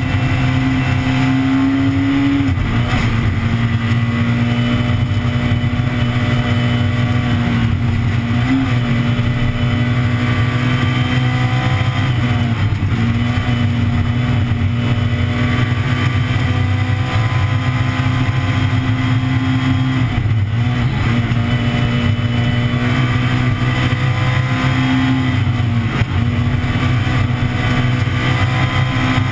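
Peugeot 207 S2000 rally car at stage speed, heard from inside the cabin: its 2.0-litre four-cylinder engine runs hard at high revs, the note holding high and steady and dipping briefly every few seconds.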